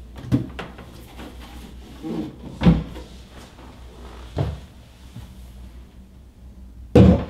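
Plastic resin-printer UV covers being handled: a few knocks and clunks as one hood is set in place and another lifted, with a louder clatter near the end.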